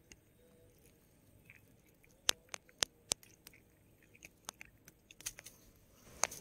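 Close handling noise: a scatter of sharp, irregular clicks and crackles, loudest a little over two seconds in and again near the end.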